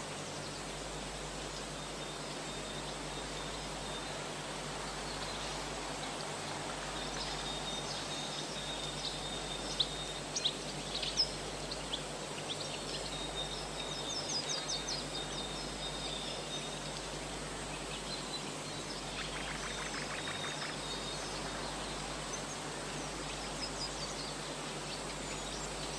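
Small birds chirping, with short high calls scattered over a steady background hiss and a brief rapid trill near the twenty-second mark.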